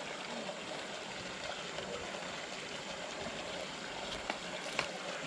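Steady rush of running water, with a few light clicks near the end.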